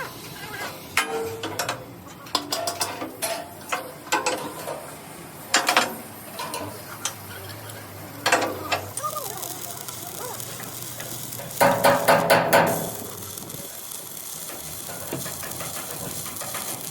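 Steel fabrication work: irregular metallic clanks and knocks over a steady noisy background, with a quick run of about five hard strikes about twelve seconds in.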